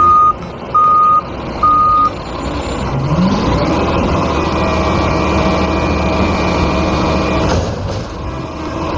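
Garbage truck sound effect: three reversing beeps, then an engine rising in pitch and running steadily before fading out.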